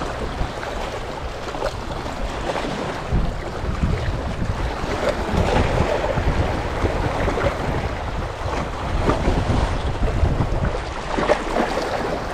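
Wind gusting across the microphone, with water sloshing against a small fishing boat's hull. It comes in uneven low rumbling gusts, with no engine running.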